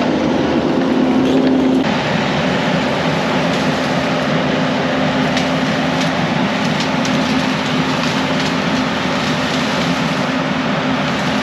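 Kubota SVL75 compact track loader's diesel engine running steadily, with a change in its sound about two seconds in.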